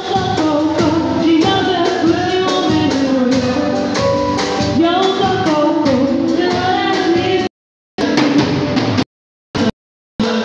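Band rehearsal: a lead vocalist sings a gliding melody over keyboard, bass guitar and drums. About seven and a half seconds in, the sound cuts out to dead silence, and only brief snatches of the music come back.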